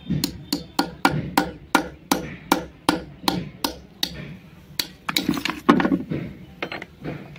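Hammer knocking on a metal blade driven into the seam of a block of white shale, sharp knocks about three a second. About five seconds in comes a louder, denser burst of cracking as the shale splits into slabs, then a few more knocks.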